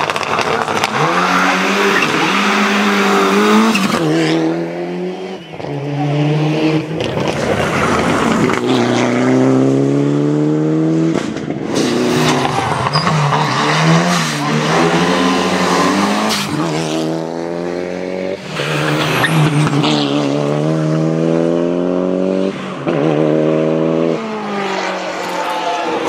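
Rally cars at full throttle passing one after another, each engine note climbing steeply, dropping at a gear change and climbing again as the car accelerates.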